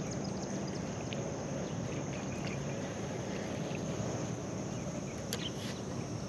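Outdoor ambience with a steady high insect buzz over a low, steady rumble, with a few faint ticks.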